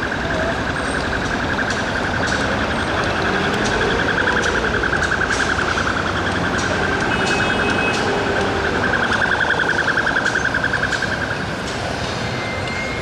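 An electronic alarm sounding one high, fast-pulsing tone that stops about eleven seconds in, over steady city traffic noise.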